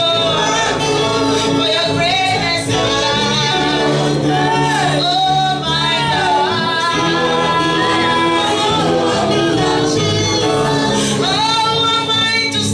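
Gospel worship song: singing voices with sliding, held melody lines over a steady instrumental accompaniment.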